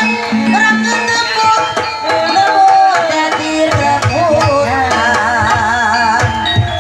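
Sundanese dance music: kendang hand-drum strokes under a wavering melodic line with vibrato.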